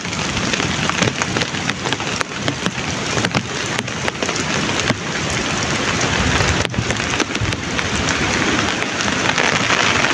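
Heavy rain falling steadily, with many individual drops striking close by as sharp hits over the constant wash.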